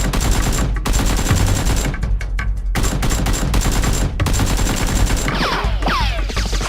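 Rapid automatic gunfire, dense overlapping shots with no break, the kind of gunshot effects laid over a Nerf blaster battle. From about five seconds in, whistling ricochet sweeps falling in pitch join the shots.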